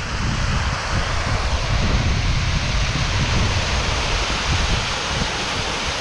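Small hillside waterfall, fed by recent rain, rushing steadily, with gusty wind buffeting the microphone that eases near the end.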